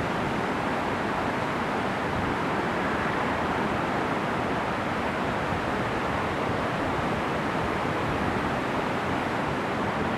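Fast-flowing water rushing steadily, a constant even hiss with no breaks or changes.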